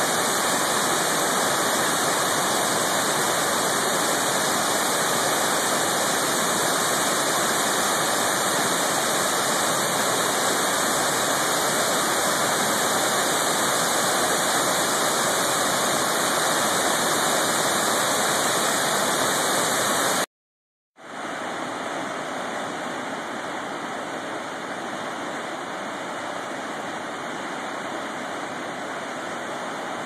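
Steady, loud rush of South Fork Eagle River Falls, a large cascade of whitewater over rock. About two-thirds of the way through it cuts off, and after a short silence a quieter, more distant waterfall rush takes over: Thunderbird Falls falling through a narrow gorge.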